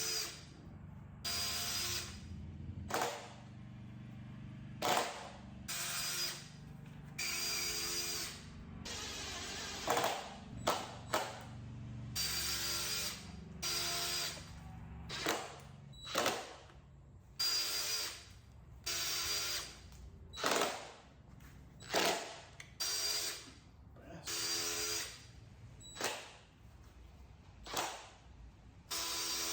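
Power drill run in short bursts of under a second, over and over, boring pilot holes with a 7/32-inch bit into 4x4 timber.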